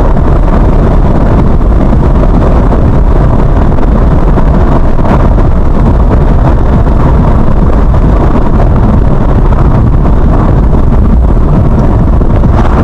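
Car driving on a rough, broken road, heard as a loud, steady, deep rumble of tyres and engine, with wind buffeting the microphone.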